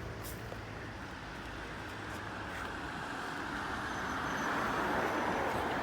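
Steady rushing road and engine noise of a moving car, building louder toward the end.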